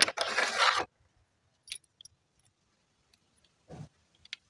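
Metal drill bits and tools rattling and jangling as they are handled during a bit change, in a burst of about a second at the start. A few light clicks and a short rattle follow near the end.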